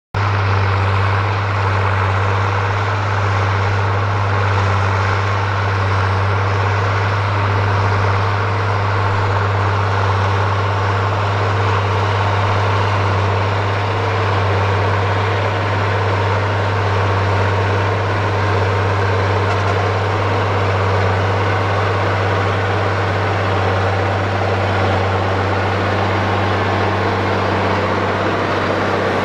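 Landini Legend 130 tractor's six-cylinder diesel engine running steadily at constant speed while the tractor works loose tilled ground, with a deep, even hum and no change in pitch.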